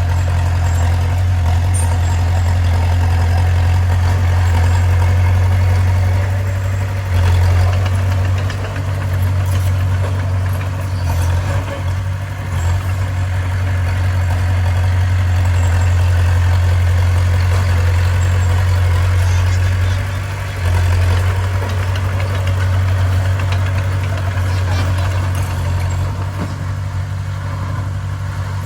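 Bulldozer diesel engine running steadily with a deep, low drone, dipping briefly a few times.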